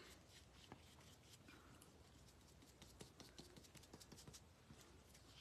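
Near silence with faint, scattered light taps and rustles: a brush dabbing Mod Podge onto the back of a paper hymnal page to touch up missed spots.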